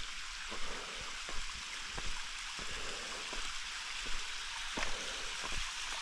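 A shallow stream of rain runoff trickling over sandstone in a desert canyon: a steady watery hiss with irregular short clicks.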